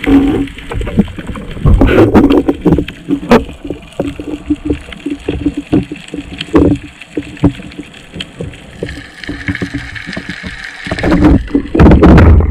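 Underwater noise picked up through a waterproof camera housing: a dense crackle of clicks and knocks over muffled water movement, with heavy low rushes of water against the housing, the strongest near the end.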